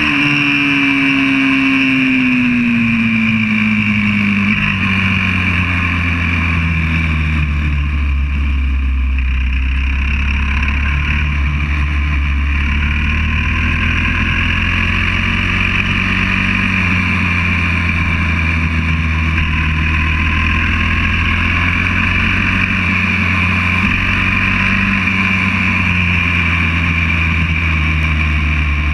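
Onboard sound of a YCF 125cc four-stroke pit bike's single-cylinder engine running on track. The engine note falls over the first few seconds as the bike slows, stays lower for a while, then climbs and drops again near the end.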